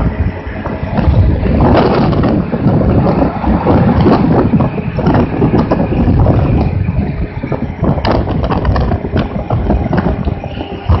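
Wind buffeting the microphone over the steady drone of a Yamaha Zuma 125 scooter's single-cylinder four-stroke engine cruising at about 50 mph.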